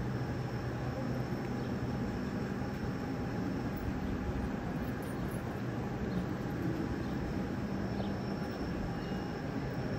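Large ventilation fans running, a steady mechanical hum and rumble with a few constant tones that neither rise nor fall.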